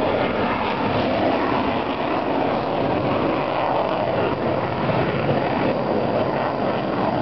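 Steady, loud jet engine noise of a Sukhoi fighter jet flying overhead, an even rushing sound that holds throughout.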